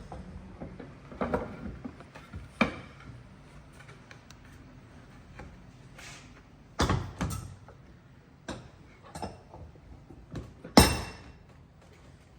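Scattered knocks and clunks of timber pieces and hand tools being handled and set down at a woodworking bench. The sharpest knock comes near the end.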